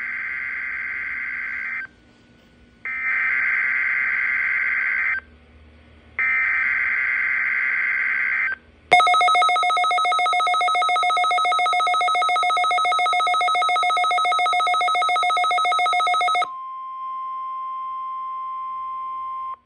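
A Midland WR-400 weather alert radio sounds the NOAA Weather Radio Required Weekly Test. First come three screeching digital alert-code bursts of about two seconds each. About nine seconds in they give way to a louder, rapidly pulsing ringing alert tone lasting some seven seconds, then a quieter steady warning tone that stops abruptly.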